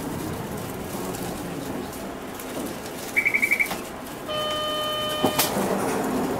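Steady cabin noise aboard a Mitsubishi Aerostar one-step city bus. A quick run of about five electronic beeps sounds, then a buzzer tone lasting about a second that stops sharply with a couple of clicks.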